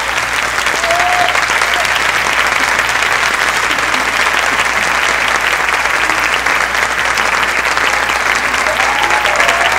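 Theatre audience applauding steadily at the end of a stage scene.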